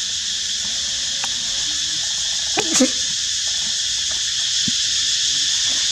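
A steady, dense chorus of forest insects hissing, with a brief louder crackle about halfway through.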